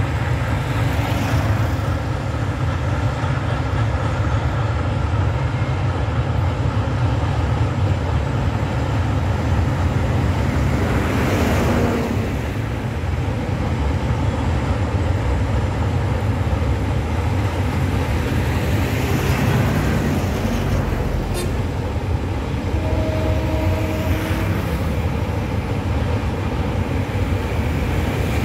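Freight train of oil tank wagons rolling by at a distance: a steady low rumble that swells briefly a few times.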